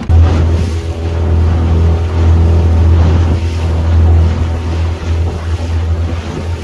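Small boat's outboard motor running under way, a loud steady low hum, with water rushing past the hull and wind on the microphone. It comes in abruptly just after the start.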